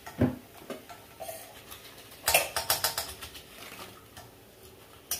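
Metal spoon clinking and knocking against a frying pan while rice-flour vadiyalu are stirred in hot oil: scattered knocks, with a quick run of several about two and a half seconds in.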